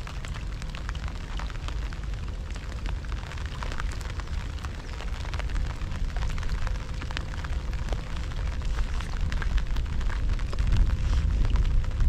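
Heavy rain falling, many small drop clicks over a low rumble of wind buffeting the microphone, growing louder near the end.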